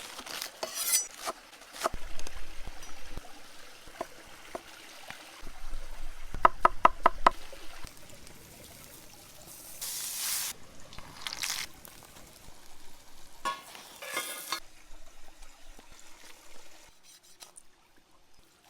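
Cooking and food-preparation handling sounds: scattered knocks and clatter, a quick run of about six even taps, and a few short hissing splashes of liquid or sizzling.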